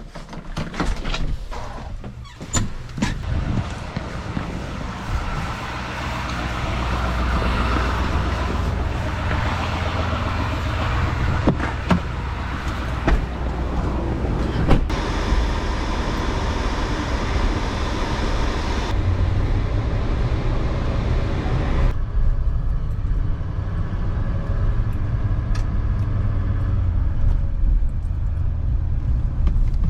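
Motor vehicle running steadily with a low hum, after a few sharp clicks and knocks in the first seconds.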